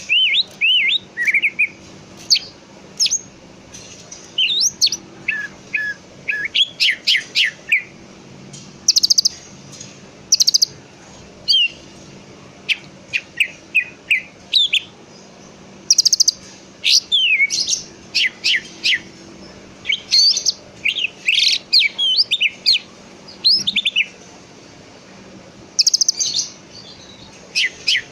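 Cucak ijo (green leafbird) singing: fast, varied phrases of sweeping whistled notes in bursts with short pauses between them. Brief harsh rattling notes come about a third of the way in, just past the middle and near the end.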